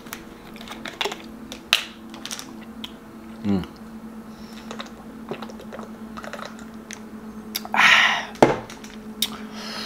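Plastic sports-drink bottle cap twisted open with a series of sharp clicks and crackles, then drinking, and a loud breathy "ahh" about eight seconds in, followed by a knock. A low steady hum runs underneath.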